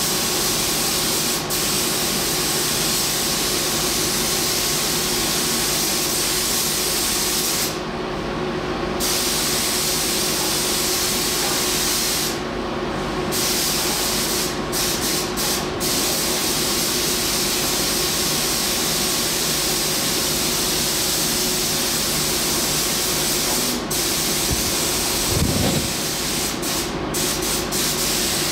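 Compressed-air paint spray gun hissing steadily as paint is sprayed onto a car body's underside. The hiss cuts out briefly about eight seconds in and again around twelve seconds in, then stops and starts in short flickers in a few places. A steady low hum runs underneath.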